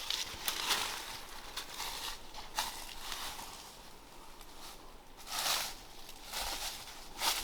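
Footsteps and rustling on the forest floor: a few scattered crunching steps with pauses, and a louder cluster of rustles about five seconds in.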